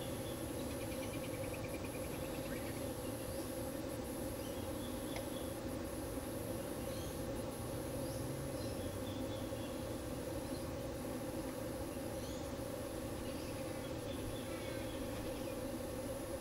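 Steady high-pitched insect drone, broken by brief regular gaps every second or two, over a constant low background rumble, with a few faint bird chirps.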